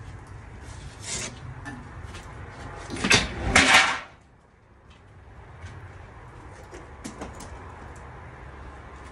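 Homemade sheet-metal pizza peel scraped and lifted off a metal tabletop: a loud metallic scrape about three seconds in, lasting about a second. A few light knocks come before and after it, over a low steady background.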